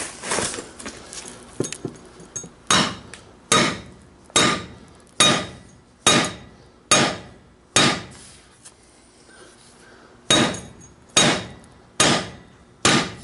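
A sledgehammer strikes a steel sleeve about a dozen times, each blow ringing sharply, a little under one a second, with a pause of about two seconds midway. The blows are driving a tight-fitting sleeve down over a broken socket.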